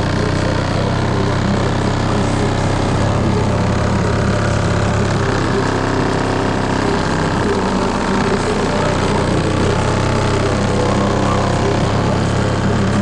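Loud bass-heavy music from the subwoofers of a VAZ-2109's car-audio system. Deep bass notes are held for a few seconds each and shift pitch every few seconds.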